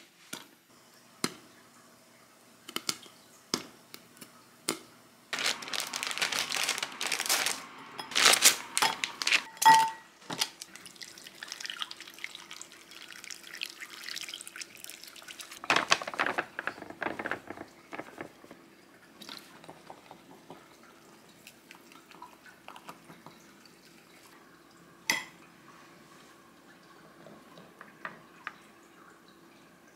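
Popping kernels rattling inside a glass-lidded frying pan as it is shaken. Later, hot water poured from an electric kettle into a glass bowl.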